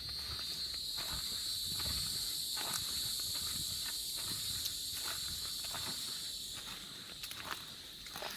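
Steady high-pitched insect buzz that comes in at once, holds, and fades out near the end, over the even footsteps of someone walking a forest trail.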